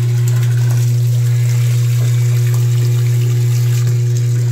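Vibrating submersible 'sapo' well pump running under test, a loud steady low mains hum, with a stream of water pouring from its outlet pipe into a barrel. The freshly rebuilt pump is delivering water well.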